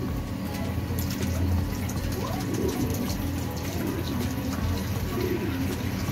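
Water running steadily into a plastic pigeon drinker as it is filled.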